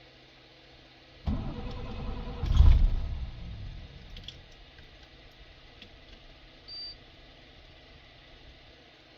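A 2000 International DT466E inline-six diesel being cranked by its starter for about two seconds, surging loudest briefly near the end before it stops and the engine dies away instead of running: a hard start. A short high beep follows a few seconds later.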